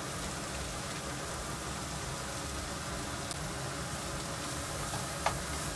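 Fried rice sizzling in a frying pan over a gas burner, a steady hiss. About five seconds in, a wooden spatula clicks against the pan a couple of times as the rice is stirred.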